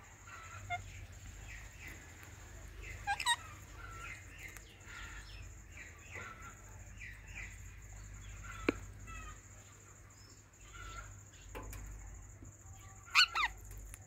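Ringneck parakeets chirping in short, repeated calls, with a loud squawk about three seconds in and a louder, downward-sweeping squawk near the end. A single sharp click sounds near the middle.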